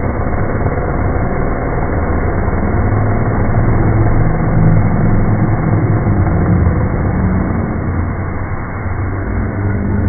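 Chainsaw running steadily as its chain cuts through an apple held in a person's mouth, a little louder around the middle as it bites through.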